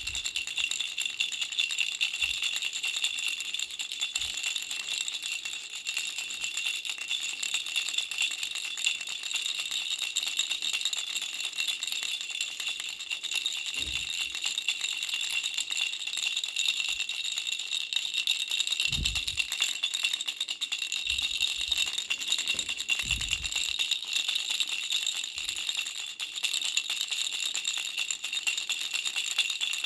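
Pink butterfly baby rattle shaken continuously in a fast, even rattle, with a steady high ringing like small bells running through it. A few soft low thumps come in around the middle.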